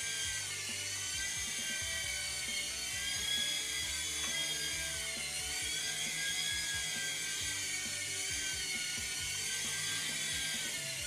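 Small 3.5-channel toy RC helicopter in flight: its electric motors and rotors make a steady high-pitched whine that wavers up and down in pitch as it is steered.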